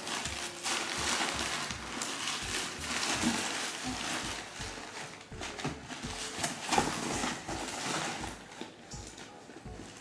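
Hands rummaging inside a mystery box: rustling and crinkling of packaging with soft knocks and bumps as an item is felt for and pulled out.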